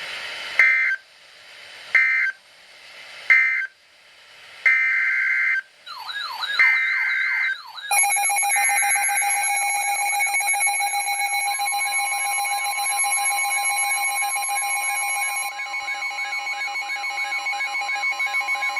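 NOAA Weather Radio emergency alert signal gone wrong. Short two-tone digital data bursts of the SAME header come first. Then a dense jumble of warbling, siren-like electronic tones over several steady tones, with the steady 1050 Hz weather radio alert tone joining about eleven seconds in: a garbled, failed EAS alert.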